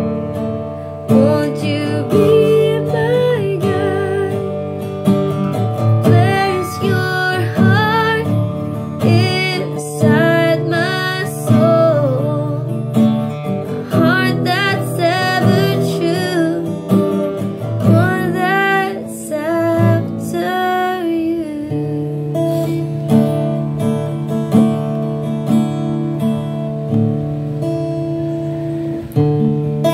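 Worship music: an acoustic guitar strumming chords under a singing voice. The voice drops out for roughly the last eight seconds, leaving the guitar on its own.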